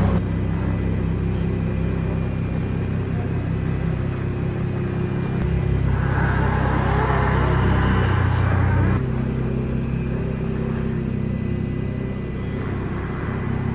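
Ford F-150 Raptor's engine running at idle with a low, steady rumble. It grows louder and rougher for about three seconds in the middle, then settles back.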